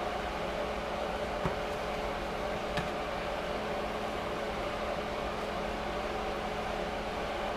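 Steady whir and hum of a running fan motor, with two light clicks about a second and a half and about three seconds in.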